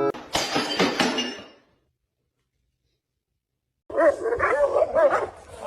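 A short burst of noise, then a silent gap, then a dog whining and yipping from about four seconds in, in high cries that waver up and down in pitch.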